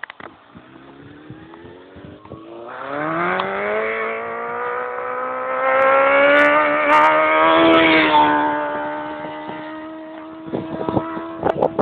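Motorcycle engine accelerating as the bike approaches, its note rising and getting louder, loudest about six to eight seconds in. The note then dips slightly, holds steady and fades. Wind gusts hit the microphone near the end.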